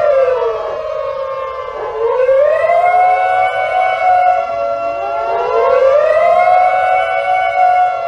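A loud air-raid-siren-style wail in long pitch glides: it falls away just after the start, climbs back about two seconds in and holds, then a second overlapping wail rises again about five seconds in.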